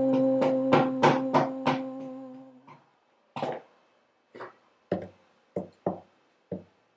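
The closing of a chant song: a held musical note rings and fades out by about three seconds in, while a drum is struck, six quick beats at first and then single hits spaced further and further apart.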